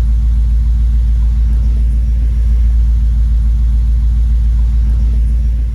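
1996 Chevrolet Impala SS's 5.7-litre LT1 V8 idling steadily with an even low pulsing, just after starting on a new battery.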